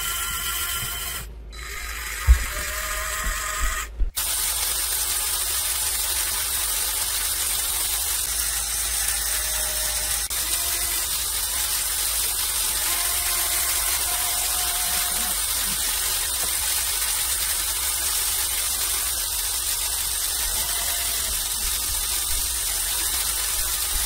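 Lego Technic machine's electric motors and gear trains running as they move socks through the rollers. A pitched motor whine in the first four seconds changes abruptly twice, then settles into a steady whirring hiss with a faint whine that comes and goes.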